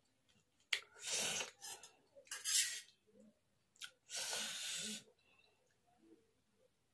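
Loud, noisy breaths close to the microphone, several short ones and a longer one about four seconds in, with a few light clicks of a steel fork against a steel plate of noodles.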